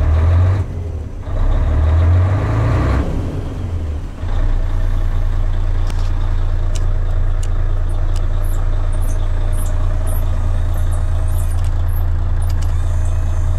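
Mercedes-Benz Actros 1843's V6 diesel engine idling, heard from inside the cab with a steady low drone. Its sound swells and dips over the first few seconds, then settles into an even idle. Faint short high chirps and clicks come in over the second half.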